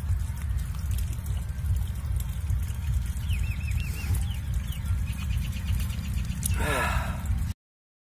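Steady low rumble of wind on the microphone, with a few faint high chirps and a quick run of ticks in the middle. Near the end a short call with a wavering pitch stands out, and then the sound cuts off suddenly.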